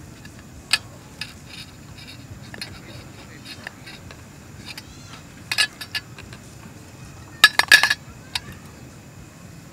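Knife and fork clinking and scraping against a metal pan while cutting food: scattered sharp clicks, a short run of clinks about five and a half seconds in, and the loudest burst of clatter about seven and a half seconds in.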